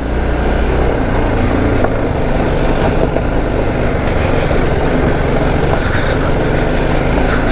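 TVS Apache RR310's single-cylinder engine running steadily under load as the bike climbs a rocky dirt trail, with a steady rush of noise over it.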